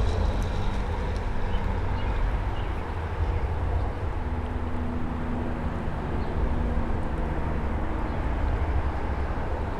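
Steady low rumble of distant road traffic, with a faint engine hum that fades in and out.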